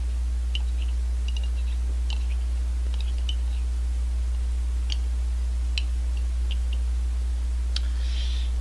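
Steady low electrical hum, with scattered light clicks of a thin stirring stick against a ceramic coffee mug. A short hiss near the end.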